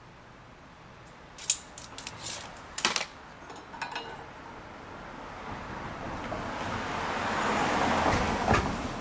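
A steel tape measure and marker handled against metal chair legs: a few sharp metallic clicks and rattles in the first half, as the tape is retracted. Then a passing vehicle's noise swells and fades near the end, with one more sharp click.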